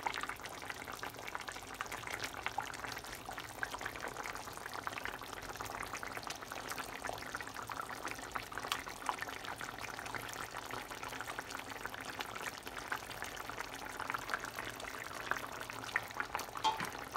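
Tilapia and yam curry broth boiling in a pot, a steady bubbling with many small pops.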